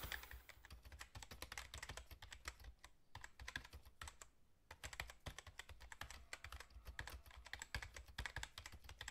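Computer keyboard typing sound effect: a faint, rapid run of key clicks, broken by short pauses about three seconds and about four and a half seconds in.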